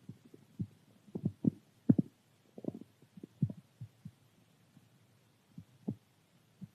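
Hungry stomach gurgling: an irregular run of short, low pops and bubbling gurgles, thicker in the first half and thinning out later.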